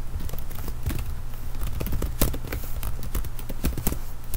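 Computer keyboard keys clicking in irregular runs of keystrokes as commands are typed, over a low steady hum.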